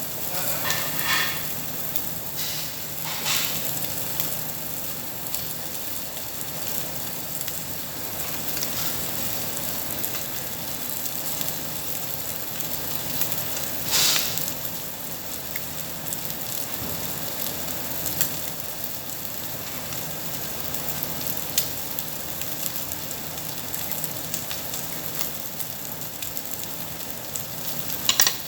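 Meat sizzling on a Korean barbecue grill, a steady hiss, with a few sharp clicks scattered through it, the loudest about halfway.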